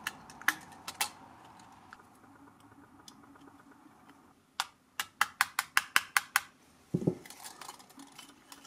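Small metal clicks and clinks from the parts of a brass and steel astrolabe being handled and fitted together: a couple of clicks, a pause, then a quick run of about ten sharp ticks, followed by a duller knock near the end.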